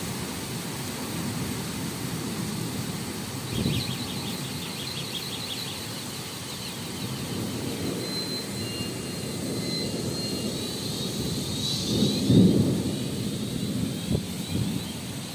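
Heavy downpour with strong wind gusting, a steady rush of rain under low rumbles that swell and fade, the loudest rumble coming about twelve seconds in.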